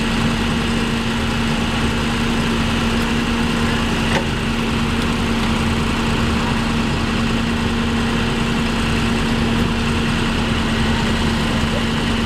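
A large vehicle's engine idling steadily, with a constant droning hum.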